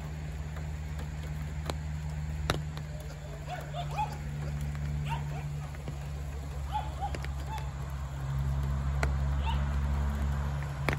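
A dog yipping and whining in excitement, a string of short high cries, over a steady low motor hum that gets louder about eight seconds in.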